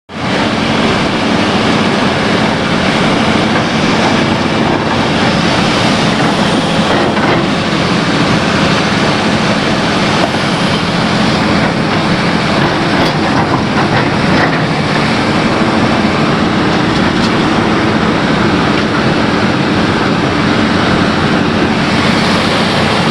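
Excavator's diesel engine running steadily under load, a continuous loud drone with a low hum, heard from on board the machine.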